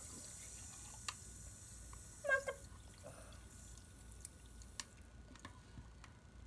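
Water gun spraying onto plants, a steady hiss that stops about two and a half seconds in, followed by scattered drips and small ticks. A short squeak sounds just before the spray stops.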